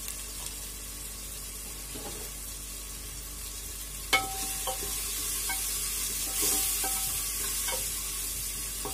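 Onion, tomato and ground spices sizzling as they fry in an aluminium pressure cooker. About four seconds in, a wooden spatula starts stirring with a sharp knock against the pot, then several short ringing taps on the metal sides.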